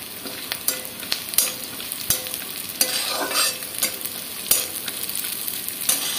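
Nuts frying in hot oil in a metal kadhai, sizzling steadily, with a metal spatula scraping and clicking against the pan a few times a second as they are stirred.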